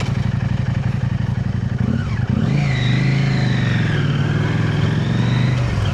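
KTM 890 Adventure R parallel-twin engine running through an aftermarket Arrow Race-Tech exhaust. It ticks over evenly at first, then about two seconds in the note rises and the bike pulls away, the exhaust holding a steady, louder drone.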